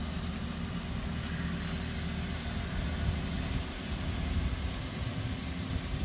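A steady low rumble, with faint light ticks about once a second.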